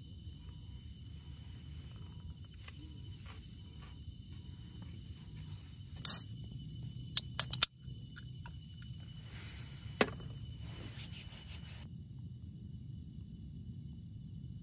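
Insects trilling steadily in a steady outdoor background hum, broken by a few sharp knocks or clicks about six and seven seconds in and once more about ten seconds in.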